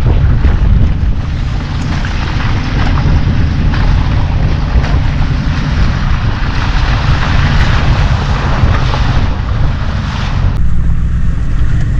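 Off-road truck driving over rough trail: a steady low engine and tyre rumble under heavy wind buffeting on the microphone, with scattered knocks from the ground or debris. The rushing noise drops away near the end.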